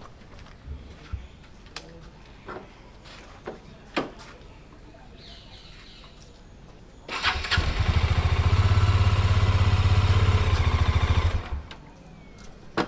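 A motorcycle is self-started about seven seconds in while in first gear with the clutch lever pulled in. It catches at once, runs steadily for about four seconds, then cuts off, with a few faint handling clicks before the start. Started in gear like this, the bike still creeps forward: the clutch plates are dragging and burning.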